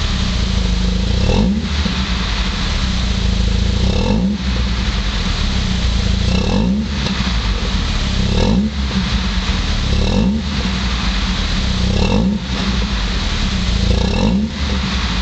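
VW Golf engine heard through a Bastuck stainless cat-back full exhaust with twin round tips, revved with the car standing still. The revs rise in short blips about every two seconds, about seven times, and fall back to a steady note between them.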